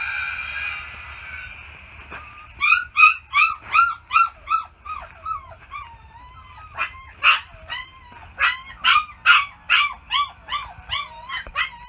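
Young puppies whimpering and yipping: a rapid run of short, high-pitched cries, about three a second, starting a couple of seconds in, with a steady high whine fading out at the very start.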